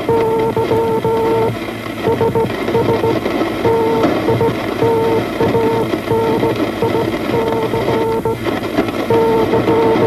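Wireless Morse code: a pitched tone keyed on and off in dots and dashes over a steady rough hiss of static, standing for the Titanic's distress call.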